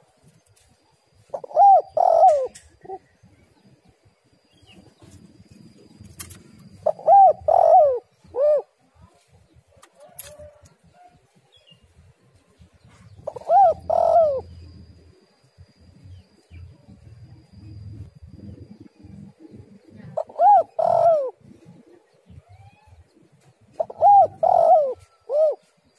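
Spotted dove cooing: five phrases of two to three arching hoots each, several seconds apart.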